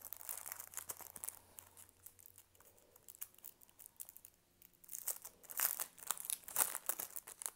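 Paper sticker sheets and their clear plastic sleeve rustling and crinkling as they are handled, sparse through the middle and busier near the end.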